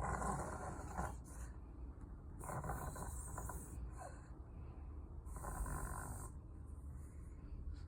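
Beagle reverse sneezing: harsh, rapid inhalations through the nose in three bouts of about a second each.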